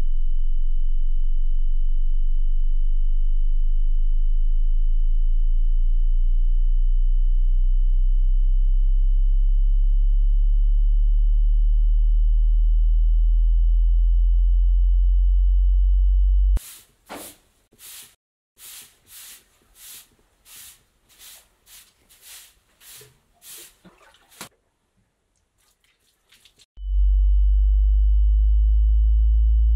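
Loud, steady low electronic hum with a faint thin high whistle-tone above it, which cuts off suddenly a little past halfway. A run of short, evenly spaced swishing or scraping strokes follows, about two a second, for some eight seconds. After a brief hush, the hum and tone return near the end.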